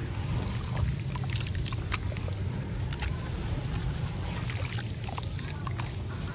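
Hands sloshing and squeezing through a basin of muddy water thick with crumbled gritty sand chunks, with splashing and scattered small gritty crackles. A steady low rumble runs underneath.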